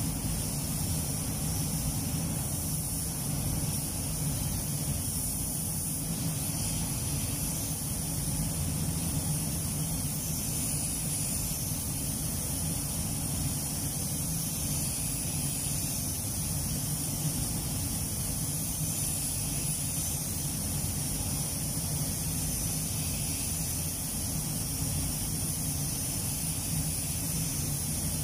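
Steady hiss of a compressed-air paint spray gun laying down clear coat, over a steady low hum.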